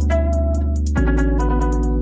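Background music: guitar over a bass line with a steady beat, the notes changing about a second in.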